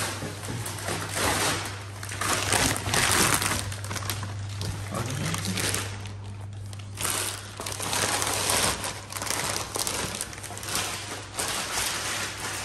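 Plastic courier mailer bag being torn open and crinkled by hand, in uneven rustling bursts with a short lull about halfway through. A steady low hum runs underneath.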